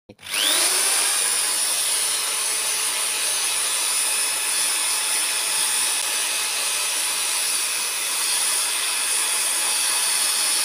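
Corded 10 mm electric drill spinning up and running steadily at full speed with a high whine, not cutting out while its power cord is bent and flexed: the break in the cord's wire that made it stop and start has been repaired.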